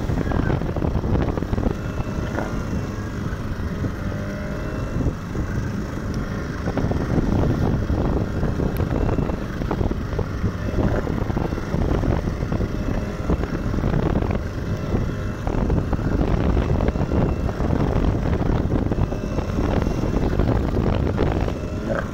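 A small fishing boat's engine running steadily under wind buffeting the microphone and waves splashing against the wooden hull.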